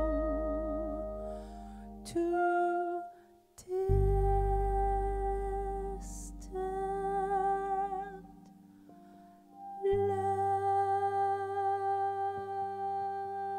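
Live jazz: a woman's voice holding long wordless notes together with clarinet, guitar and bass in slow sustained chords. A new low note starts about 4 s and 10 s in, each chord ringing on and fading before the next.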